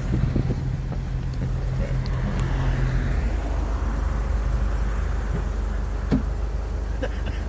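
Car engines idling close by: a steady low hum, one part of which drops away about three seconds in. A single short knock about six seconds in.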